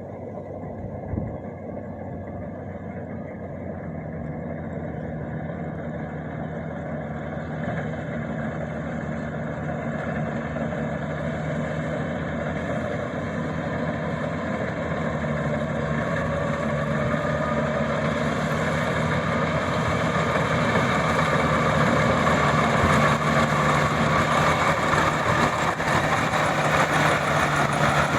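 Maxxi 85 combine harvester's engine running steadily, growing louder through the whole stretch, with a single short knock about a second in.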